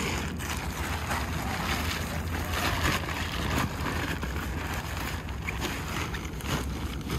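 Tent fabric rustling in irregular bursts as the bundled tent is stuffed into its carry bag, over a steady low rumble of wind on the microphone.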